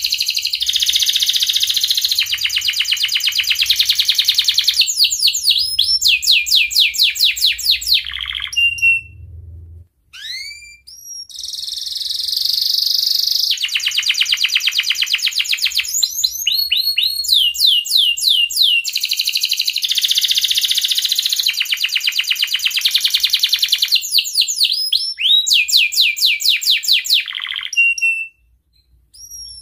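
Domestic canary in breeding condition singing: loud, fast rolling trills and rising chirps, phrase after phrase, breaking off briefly about nine seconds in and again near the end.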